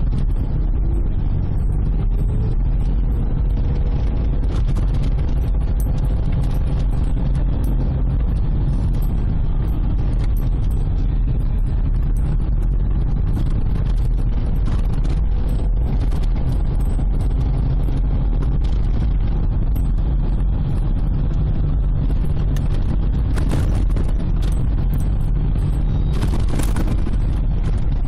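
Steady low rumble of road and engine noise inside a moving car's cabin, with a faint whine. Two brief hisses come near the end.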